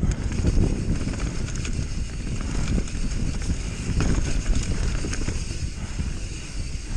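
Bird Aeris mountain bike riding fast down a dirt trail, heard from a camera mounted on the bike: a steady low rumble from the tyres on the ground with frequent knocks and rattles as the bike bounces over roots and bumps.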